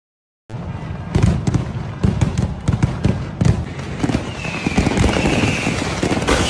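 Fireworks going off in a dense volley of cracks and bangs, starting about half a second in. A high falling whistle joins in the last couple of seconds.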